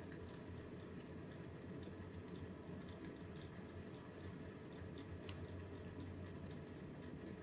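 Faint, irregular light clicks of small clock parts being handled during disassembly, over a low steady hum.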